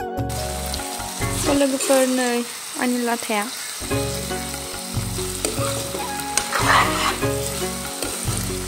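Silkworm pupae and chopped greens sizzling in hot oil in a steel kadai, stirred and turned with a metal spatula.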